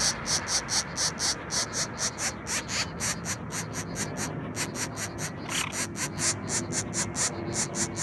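Woodpecker nestlings in a tree-hole nest giving a rapid, high-pitched begging call, about five pulses a second.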